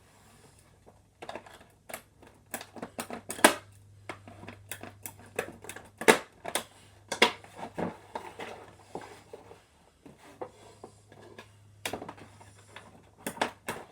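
Cardboard and plastic packaging of a Nerf blaster set being opened and handled by hand: irregular clicks, taps and crinkles, a few of them sharper knocks.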